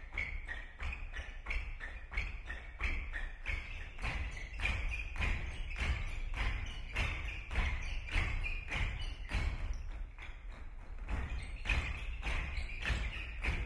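Dozens of dancers jumping in unison on a stage floor, their feet landing in a steady rhythm of about three thuds a second.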